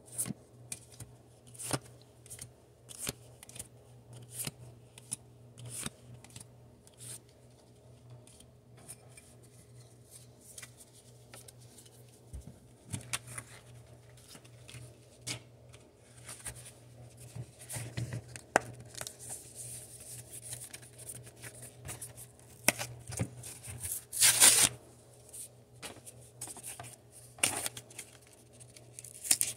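Pokémon trading cards being flipped through by hand: short snapping flicks about once or twice a second, becoming sparser. Later comes rustling of a cardboard product box being handled, with one louder rustle about 24 seconds in, over a steady low hum.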